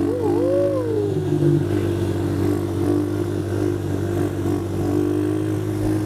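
Engine of a 150 cc automatic ATV with a horizontal motorcycle-type engine, running at steady revs as it is pushed toward its top speed. A short wavering tone sounds over it in the first second.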